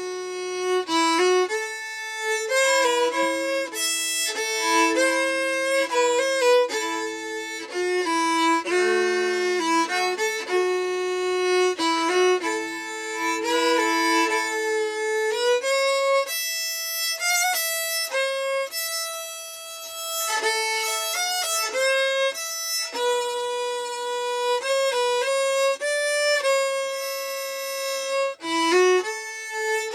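Solo fiddle playing a slow old-time tune in sawmill tuning. For much of the first half two strings sound together, with a lower note held under the moving melody; after that it is mostly single notes.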